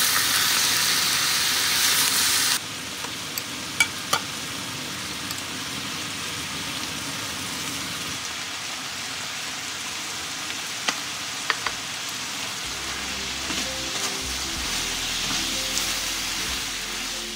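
Pork and vegetables sizzling steadily in a hot frying pan as they are stir-fried. The sizzle is loud for the first couple of seconds, then drops to a quieter, even hiss. A few sharp clicks come around four seconds in and again near eleven seconds.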